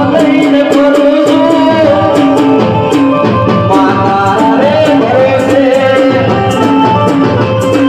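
Gujarati devotional folk music of a ramel: a voice singing a melody over accompanying instruments, with a steady percussion beat.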